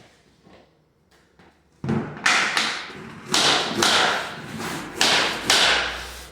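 Hammer striking a plastic flooring tapping block: a few faint taps, then from about two seconds in a run of hard knocks, driving the short-end tongue of a vinyl plank into its groove to seat the joint.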